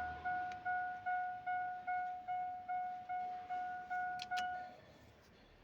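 GMC car's dashboard warning chime sounding a steady, evenly repeated single-pitch 'ding', about two and a half times a second, with the ignition switched on. Two sharp clicks come shortly before the chime stops, near the end.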